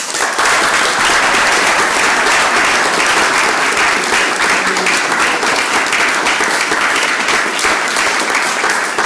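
Audience applauding, dense and steady, starting suddenly and easing slightly near the end.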